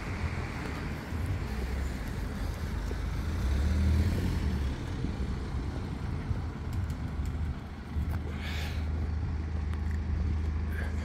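Road traffic: cars and vans passing on a town street, a steady low rumble of engines and tyres that swells about four seconds in.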